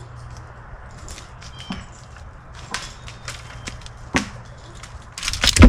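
Dry wood cracking and snapping in a series of sharp, irregular cracks that come thicker toward the end, then a loud heavy thud near the end.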